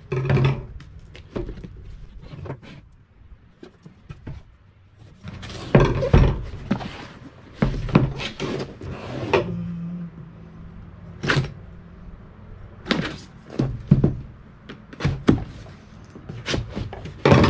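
A cardboard box being worked open: its packing tape cut and pulled away, with cardboard scraping and rustling and the box knocking against a table top at irregular moments.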